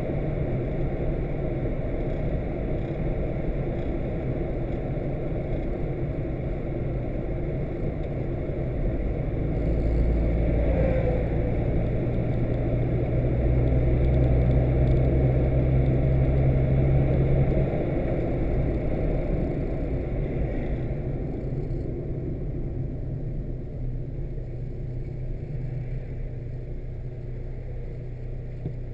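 Car engine and road noise heard from inside the cabin while driving, a steady low rumble. It grows louder from about ten seconds in, holds for several seconds, then eases off and stays quieter.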